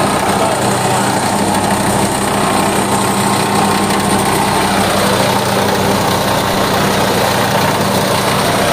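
A mini rice thresher with a double blower running steadily off its small engine while threshing paddy. A constant engine hum sits under an even noise from the threshing drum and fan, with no change in speed.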